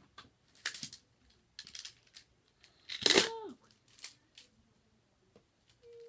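Plastic magnet blocks being handled and fitted together: scattered clicks and rustling clatter. About three seconds in a louder clatter comes with a short cry that falls in pitch, and a similar falling cry starts near the end.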